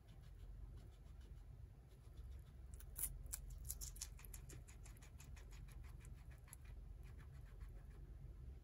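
Guinea pig chewing romaine lettuce: a rapid run of faint, crisp crunches, loudest about three to four seconds in.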